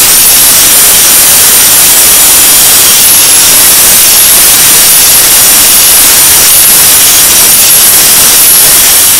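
A power grinder runs steadily with the steel blade of a chipped bill hook pressed to it, grinding the edge: a loud, even rushing noise with a high, wavering motor whine.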